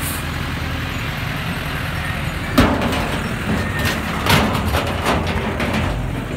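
A truck engine runs steadily, with a couple of sharp clattering noises about two and a half and four seconds in.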